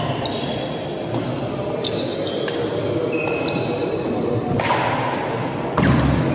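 Badminton doubles rally: rackets hitting the shuttlecock in a quick string of sharp strikes, the two loudest near the end, with shoe squeaks on the wooden court floor. Spectators chatter in the background of a large echoing hall.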